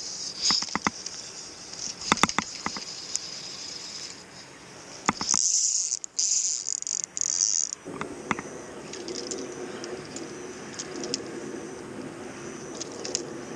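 Insects trilling steadily and high-pitched, louder for a couple of seconds about halfway through, with scattered clicks and a lower hum joining in for the second half.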